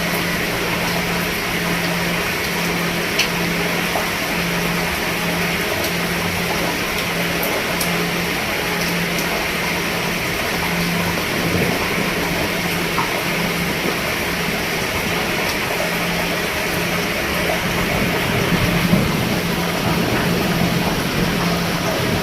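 Steady rain falling on a roof, an even hiss with scattered faint drop ticks. Under it, a low hum pulses on and off about one and a half times a second.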